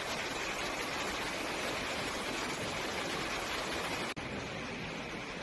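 Steady rushing water, with no distinct events. It breaks off abruptly a little past four seconds and goes straight on as a similar, slightly quieter rushing.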